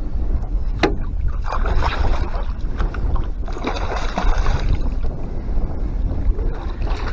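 Wind buffeting the microphone in a steady low rumble, with a few brief splashy rushes and a couple of sharp clicks.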